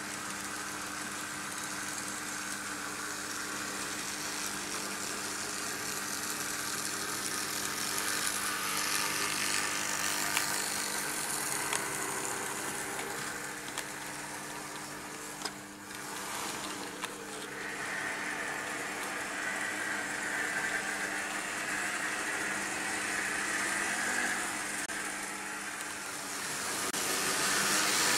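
Märklin H0 model trains running on metal M-track: a steady electric hum with the continuous rolling rattle of coach wheels on the track. The sound dips briefly about halfway through and grows louder near the end.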